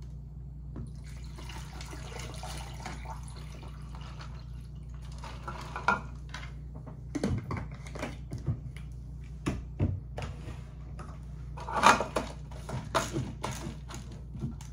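Pink lemonade poured from a plastic bottle into a tumbler, a steady pour for about four seconds, followed by a series of clicks and knocks as the bottle and the cup are handled and closed, the loudest about twelve seconds in.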